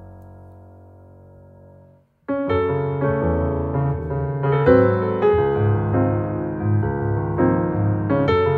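A sustained cello and double bass sound fades away, and after a brief silence about two seconds in, a solo piano enters, playing a moving line of chords over low bass notes.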